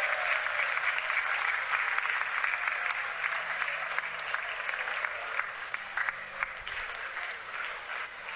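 Congregation applauding, many hands clapping together, the applause thinning and growing quieter in the second half.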